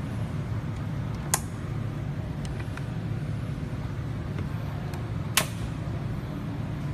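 Two sharp clicks, about four seconds apart, over a steady low hum.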